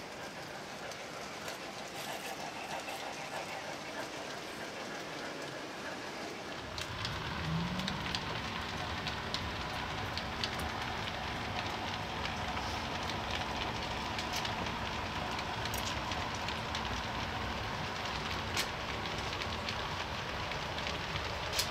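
Model train running on the layout: a low rumble sets in about six seconds in and carries on, with scattered sharp clicks over a steady hiss.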